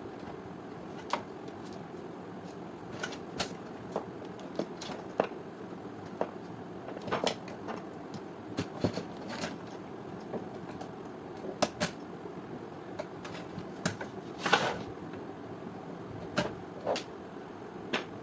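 Irregular clicks and light taps of small hard parts being handled and worked on during a steam iron repair, over a steady background hiss.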